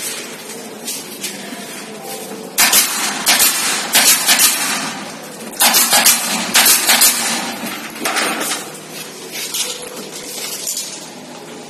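Two quick runs of sharp clattering knocks, each run about two seconds long, with a few lighter knocks after them, from work on plastic bathroom ceiling panels.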